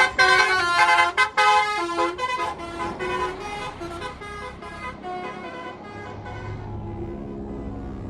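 Tour bus's basuri telolet horn playing a quick melody of shifting notes, loud at first and fading away over about five seconds. A low vehicle rumble is left near the end.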